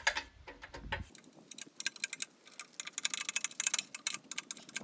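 Ratchet wrench clicking in quick runs of ticks as a bolt is tightened to snug by hand.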